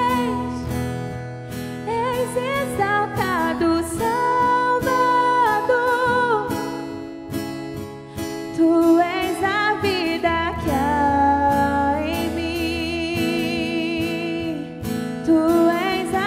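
A woman singing a Christian worship song in long held notes with vibrato, accompanied by an acoustic guitar played with a pick.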